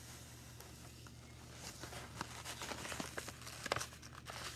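Faint crinkling of a sheet of paper being handled, with scattered small ticks of salt grains shifting on it.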